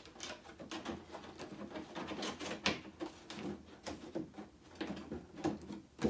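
Thin clear plastic protector for a 10-inch Funko Pop being handled as its tabs are folded shut: irregular crinkles, clicks and taps of the flimsy plastic.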